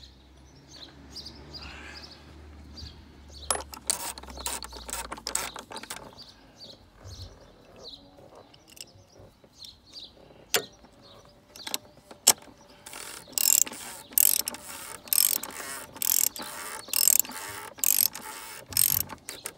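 Socket ratchet clicking in a run of short strokes through the second half, tightening the plastic oil-filter housing cap on the BMW 530d's diesel engine. A clatter of metal clicks about four seconds in.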